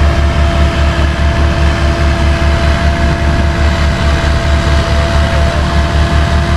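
Heavy diesel engine running at a steady speed with a fast, even low throb, and a steady whine over it that fades out near the end, during a winch recovery of a mini excavator.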